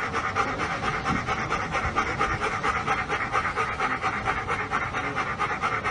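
A person imitating a steam locomotive's chugging with the mouth, a fast, steady rhythm of breathy puffs like a train chuffing.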